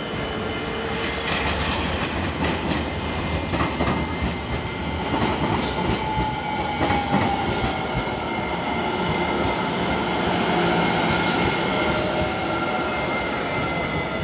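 Tram running on its rails: a steady rolling noise, with a whine that slowly shifts in pitch and a few clicks from the wheels over the track.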